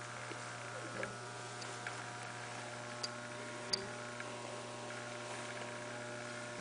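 Steady electrical mains hum, with a few faint short clicks and creaks of saddle tack as a rider swings up onto a horse.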